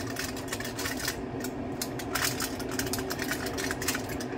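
Scissor blades clicking and aluminium foil crinkling as a piece of baked bibingka is snipped and pulled out of a foil-lined baking pan: irregular sharp clicks and crackles over a steady low hum.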